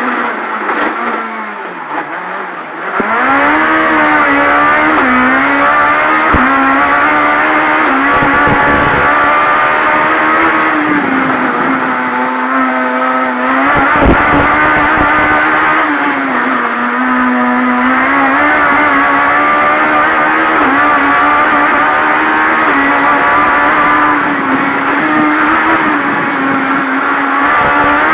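Competition car's engine driven hard, its revs rising and falling with throttle and gear changes. It is quieter for the first few seconds, then runs loud.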